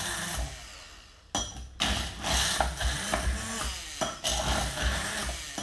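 Stick blender grinding salted cashew nuts in a glass bowl into a crumbly vegan parmesan, the blade chopping and rattling the nut pieces against the glass. It cuts out briefly twice, about a second in and about four seconds in, and starts up again each time.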